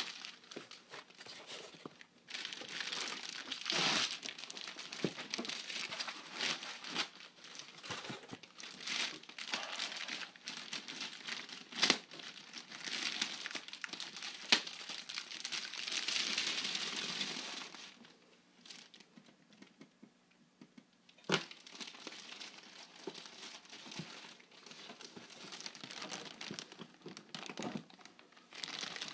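Box packaging crinkling and rustling, with foam and wrapping handled as a car amplifier is pulled out of its box. There are a few sharp clicks along the way and a quieter pause about two-thirds of the way through.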